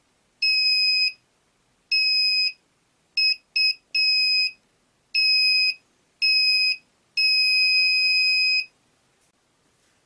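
Small buzzer on a breadboard light-barrier alarm circuit beeping at one high pitch each time a hand breaks the red light beam to its sensor. There are eight beeps of uneven length, from two quick chirps to a final one of about a second and a half.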